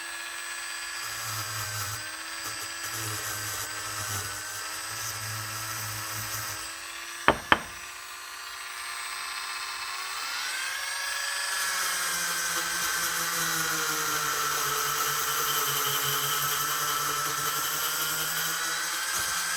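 Small electric power tool spinning a brass wire wheel against a carburetor float bowl, scrubbing off deposits with a steady whine that changes pitch as it is pressed. Two sharp clicks about seven seconds in.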